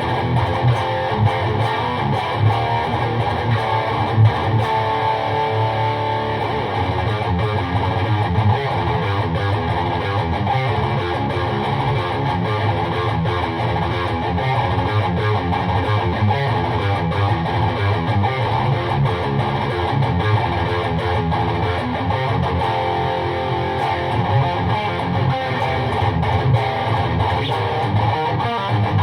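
Electric guitar, a Jackson DKM2 with Seymour Duncan JB pickups, played through a PRS MT-15 V2 valve amp into a 1x12 cabinet with a Celestion Vintage 30, heard as room sound. It is played continuously, with strummed chords and picked lines.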